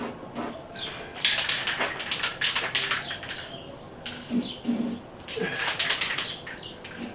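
Irregular clicking, scraping and rustling from hands-on handling work, in quick clusters with short pauses between them.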